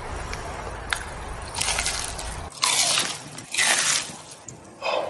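Crunching of food being bitten and chewed: three loud crackly bursts about a second apart in the second half.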